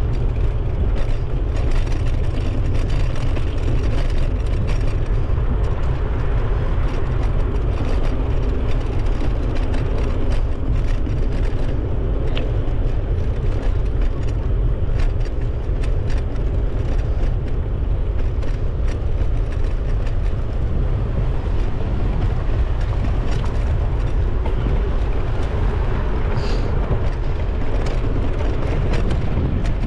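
Steady low wind rumble buffeting the microphone while riding a bicycle, mixed with road and tyre noise and scattered light clicks and rattles.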